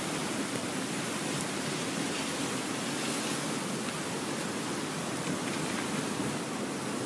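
Steady rushing noise of a flash-flood surge of muddy water pouring down a channel.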